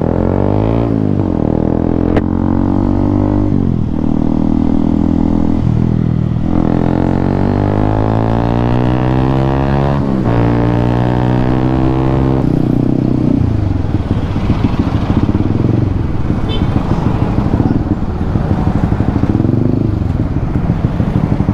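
2018 Honda CB150R's single-cylinder engine accelerating through the gears, the revs climbing and then dropping at each upshift, five times in a row. About two-thirds of the way through it settles to a lower, uneven running.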